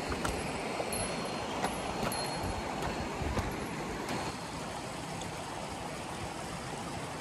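Steady rush of a mountain river flowing over rocks, easing slightly about four seconds in, with a few faint clicks in the first half.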